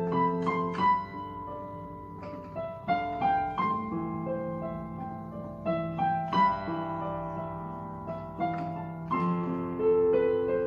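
Electronic keyboard played with a piano sound: a slow melody of single notes over held chords, new notes struck every half second to a second.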